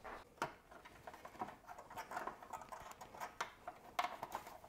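Faint, scattered clicks and light taps of hands prying a plastic brake-line clip off a motorcycle's front fork, with a few sharper clicks, one about half a second in and one about four seconds in.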